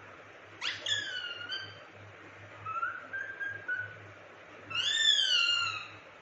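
Indian ringneck parrot calling three times, with short pitched calls that slide in pitch. The last call, about five seconds in, is the loudest and longest, rising then falling.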